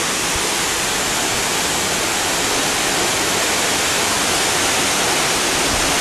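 Waterfall with a heavy flow of water crashing down: a steady, dense rushing noise that does not change.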